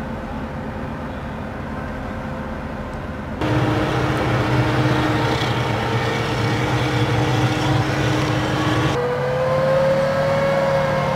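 Engines of tracked amphibious assault vehicles (AAV7-type) running with a steady drone. The sound jumps abruptly to a louder take about three and a half seconds in and changes again about nine seconds in, where the engine pitch rises slightly.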